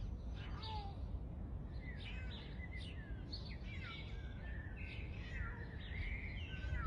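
Small birds chirping repeatedly in short calls over a steady low rumble of outdoor background noise.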